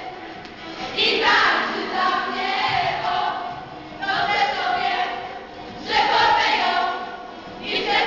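A group of young women singing together in unison, loud phrases starting again every two or three seconds.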